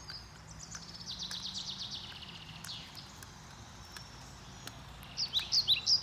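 Songbirds singing: a rapid high trill in the first two seconds, then from about five seconds in a loud run of quick, high notes, each sliding down in pitch.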